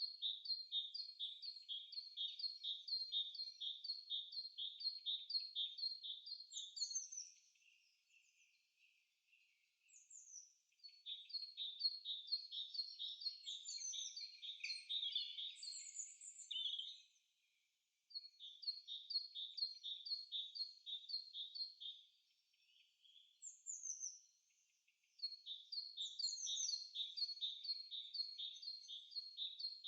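Forest birdsong: a bird repeating a short high note about three to four times a second in runs of several seconds, with brief pauses between runs and a few higher calls from other birds over it.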